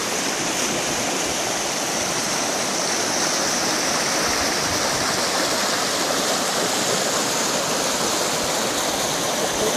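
Shallow river water rushing over stones and riffles, a steady, even rush.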